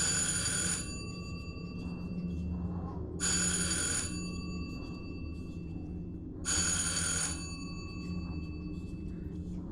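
A telephone ringing three times, short rings about three seconds apart, each leaving a fading tone, over a steady low drone.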